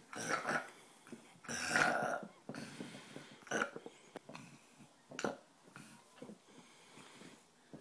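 Snoring: a string of noisy, rasping snores a second or two apart. The loudest come in the first two seconds, and they grow fainter towards the end.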